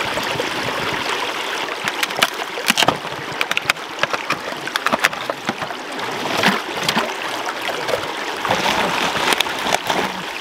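Small rocky stream trickling and splashing over stones, with repeated sharp clinks and splashes as aluminium drink cans are set down in the water among the rocks to cool.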